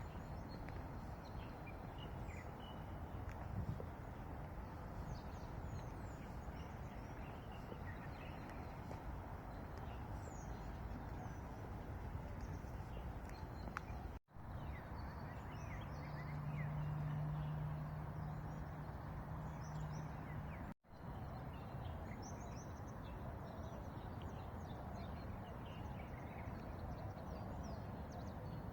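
Outdoor park ambience: a steady background hush with small birds chirping and calling here and there. A low steady hum sounds for about four seconds in the middle, and the sound cuts out completely twice for an instant.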